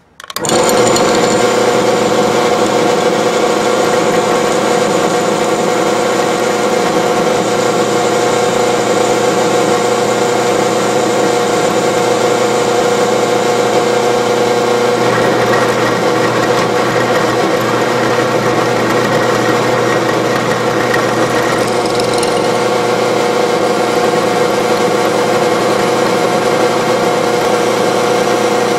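Drill press motor switched on, then running steadily while a twist bit drills a pin hole through a steel knife blank.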